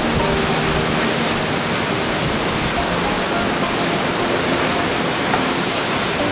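Waterfall rushing in a steady, loud roar, with faint music underneath.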